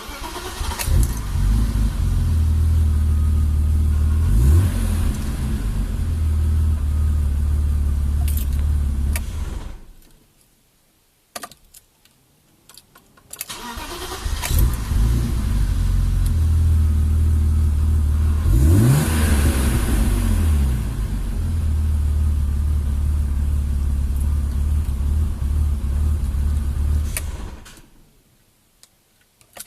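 BMW E36 325i's 2.5-litre straight-six starts and idles for about nine seconds, with a small rev a few seconds in, then is switched off. After a few seconds of quiet it starts again, idles with a quick rev blip midway, and is switched off near the end.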